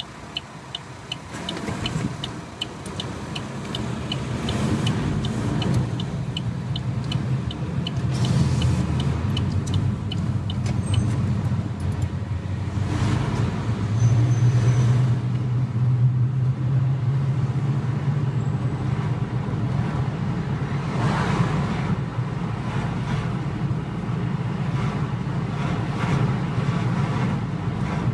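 Car engine and road noise heard from inside the cabin, rising as the car pulls away from a standstill and then running steadily as it drives on. A regular ticking, about two to three ticks a second, runs through the first nine seconds or so.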